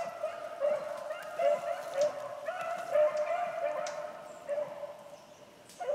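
A pack of rabbit-hunting dogs baying in overlapping short cries while running a rabbit's trail; the cries fade after about four seconds as the pack moves off. A sharp crack sounds near the end.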